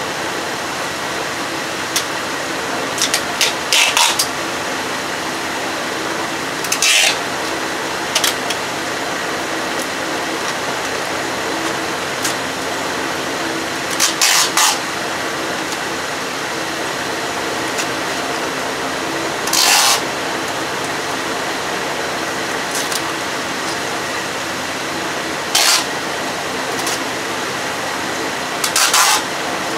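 Steady whirr of a van's engine bay with the electric radiator cooling fans running, broken several times by short hissing bursts.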